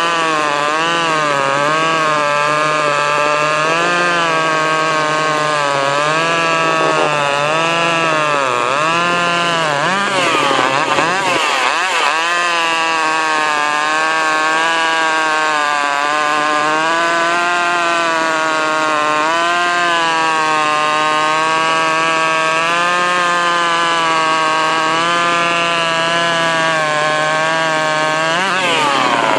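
Ported Poulan S25 AV two-stroke chainsaw at full throttle cutting through a log. The engine pitch swings up and down for about the first twelve seconds as the chain loads and eases in the cut, then holds nearly steady, and climbs sharply near the end as the load comes off.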